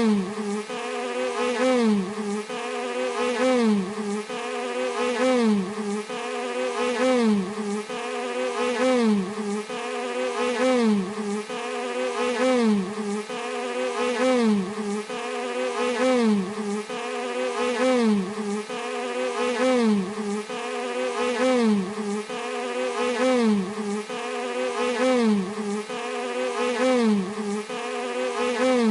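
Bee buzzing, a steady drone whose pitch dips and swoops back up in a regular cycle about every two seconds, repeating evenly like a loop.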